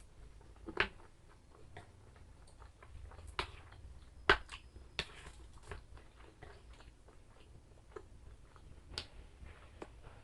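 A person eating close to the microphone: chewing, with a handful of sharp clicks scattered through, the loudest about four seconds in.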